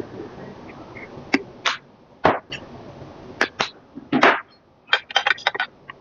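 A metal spoon and tableware clinking against ceramic bowls and a stone pot in a series of sharp separate clinks. A quick run of clinks comes near the end as radish kimchi is scooped from its bowl.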